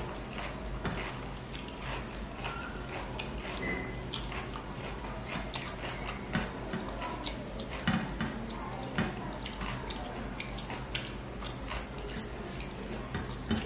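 Fingers mixing rice with fish curry on a steel plate, with irregular sharp clicks and soft squishing, over a steady low hum.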